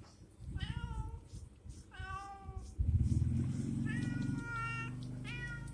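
A domestic cat meowing four times in a row. A low rumble sits under the middle calls.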